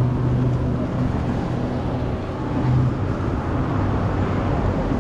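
City street traffic with a vehicle engine running close by, its low hum dropping away about three seconds in.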